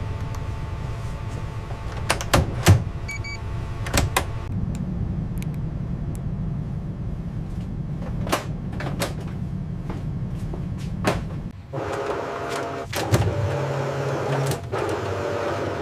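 Steady low machinery hum with scattered sharp metallic clicks and clunks. Near the end, several steady tones join the hum.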